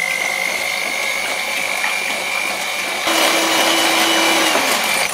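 Moulinex electric hand mixer running at a steady speed with a high, even whine, its beaters whipping eggs, oil and sugar in a glass bowl. About three seconds in, the sound grows louder and rougher with a lower hum added, and the motor cuts off at the very end.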